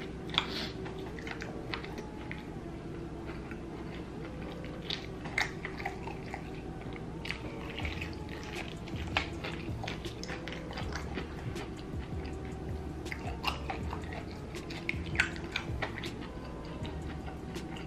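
Someone biting and chewing crunchy fried chicken covered in sauce: irregular sharp crunches of the fried crust, with wetter chewing between them.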